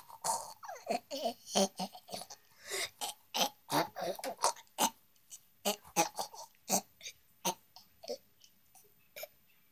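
A person's voice babbling in short, quick nonsense syllables, in the manner of a put-on voice for a toy. The syllables come thick for about the first five seconds, then sparser.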